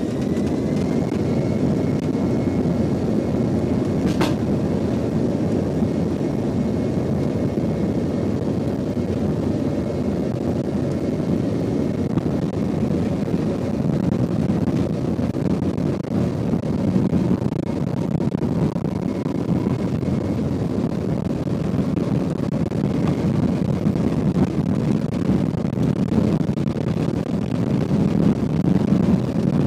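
Embraer E190's turbofan engines at takeoff power heard from the cabin: a loud steady rumble with a high whine held at one pitch. A single sharp click about four seconds in.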